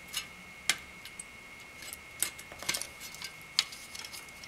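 Wire fan clips being unhooked from a CPU cooler's aluminium fin stack and 120 mm fan frame: a handful of sharp metallic clicks and snaps, the loudest about two-thirds of a second and three and a half seconds in.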